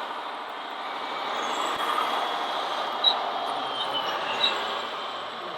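Radio-controlled model construction machines running, with a steady mechanical whir and a faint wavering high whine of small motors and gears. Two short sharp clicks come about three and four and a half seconds in.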